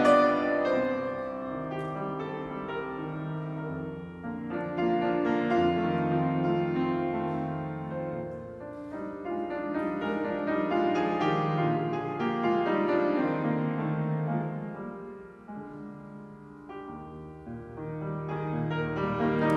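Slow instrumental background music played on a keyboard, with long-held notes; it dips quieter for a moment about three-quarters through.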